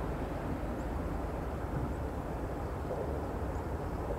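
Steady low rumble of a freight train rolling along at a distance.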